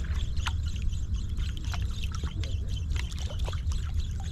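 Water splashing and lapping around a small engineless boat, with scattered short splashes and clicks over a steady low rumble.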